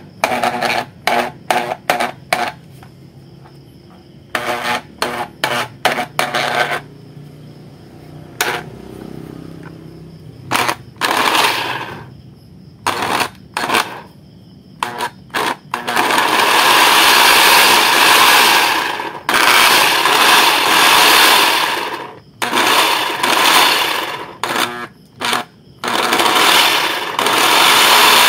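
Plastic housing of a XUI orbital sander clicking and knocking as it is handled and pried apart. Later come several loud, rattling bursts of two to three seconds each, typical of the sander's motor being switched on and off. The sander's fault is in its armature.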